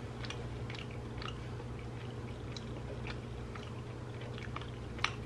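Soft chewing and small mouth clicks of a man eating a bite of air-fried shark meat, faint over a steady low hum, with one sharper click about five seconds in.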